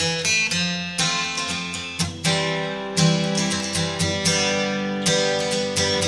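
Background music: acoustic guitar strumming chords, with a strong stroke about once a second and lighter strokes between.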